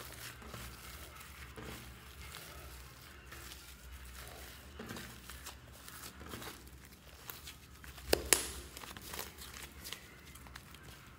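Hands squishing, kneading and stretching green slime mixed with shaving foam, giving a run of crackling clicks, with two louder snaps a little past eight seconds in.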